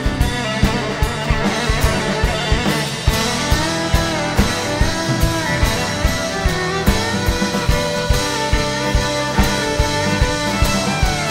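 Live rock band playing an instrumental passage: guitar over a steady drum-kit beat.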